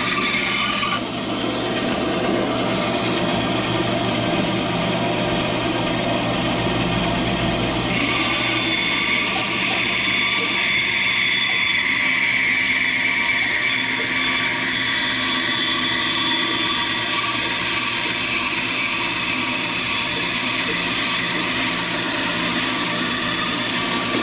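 Band saw running and cutting a cedar board along a curved line, a steady motor hum under the hiss of the blade in the wood; the cutting noise turns brighter about a third of the way in.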